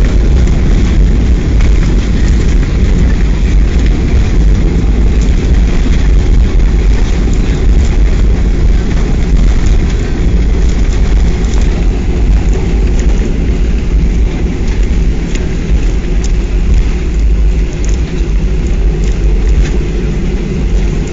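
Airliner cabin during the landing: a loud, steady, deep rumble of the engines and the wheels on the runway, with light rattling clicks throughout.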